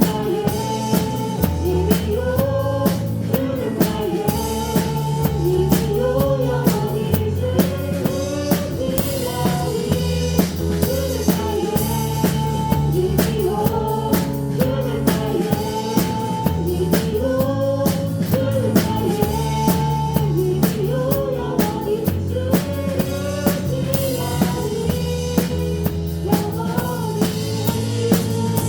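Live praise-band music with a drum kit playing a steady beat of kick and snare hits, over bass and a melody line.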